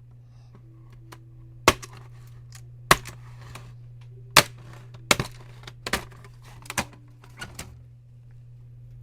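Irregular sharp clicks and knocks of hand tools and plastic laptop case parts being handled during disassembly, about six loud ones and several fainter ones, over a steady low hum.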